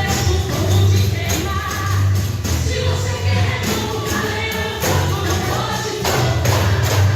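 Christian worship song playing, with a sung melody over steady bass and regular percussion strikes.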